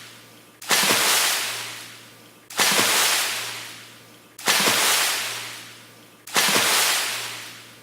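A fast water splash, repeated about every two seconds: each one starts suddenly and fades out over about a second and a half, four times in all, over a faint steady hum.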